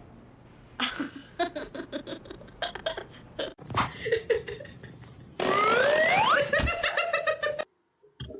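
A person laughing in quick, rhythmic bursts, followed near the end by a loud cry rising in pitch that cuts off suddenly.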